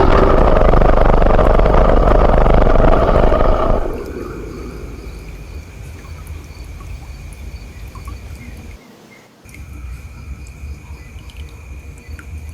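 Monster roar sound effect: a loud, rough roar breaks in at once, lasts about four seconds, then falls away. A quieter eerie ambience of low rumble and a steady high tone follows, cutting out briefly about nine seconds in.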